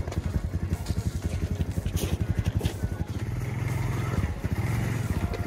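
ATV engine running at low speed with a steady rapid chugging, picking up a little about three seconds in as the quad creeps forward over the ice towing a sled.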